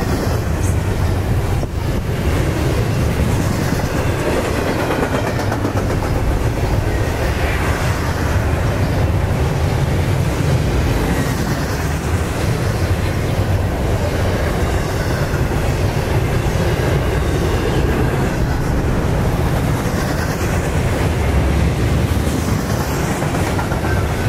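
Double-stack intermodal container freight train rolling past, a steady rumble of its wheels on the rails.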